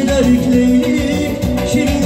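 Lezgi song played live on a Korg synthesizer keyboard with a steady beat, and a man singing a bending melodic line over it.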